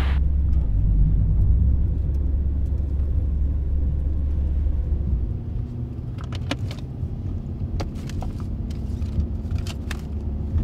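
Low rumble of a car heard from inside the cabin, engine and road noise, which eases off about halfway through. Scattered small clicks and rattles follow in the second half.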